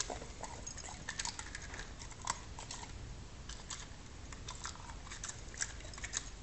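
A dog crunching and chewing a hard-candy lollipop: sharp, irregular cracks and crunches as the candy breaks between its teeth.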